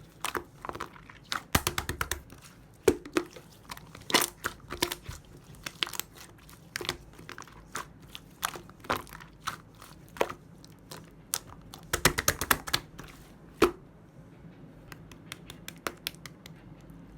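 Clay-mixed slime being squeezed, pressed and poked by hand, giving irregular crackling clicks and pops. Two denser, louder clusters of pops stand out, one near the start and one about two-thirds of the way through.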